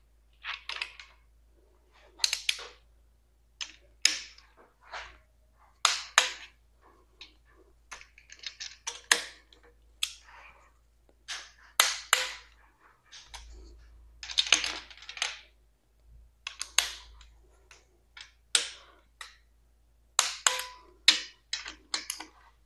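Ratcheting torque wrench tightening intake manifold bolts to 18 lb-ft, in short runs of sharp clicks about every second or two.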